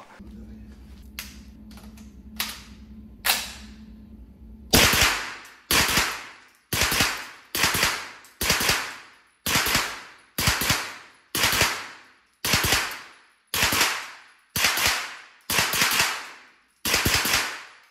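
Suppressed 9mm HK MP5 fired in single shots in an indoor range bay: about fourteen sharp reports, roughly one a second, each with a short echo. A few faint clicks come before the first shot.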